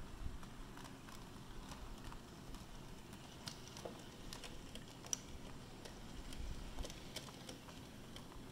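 OO gauge model train (Hornby Merchant Navy locomotive hauling coaches) rolling along the track, its wheels making irregular light clicks over the rail joints above a faint low rumble, with one sharper click about five seconds in.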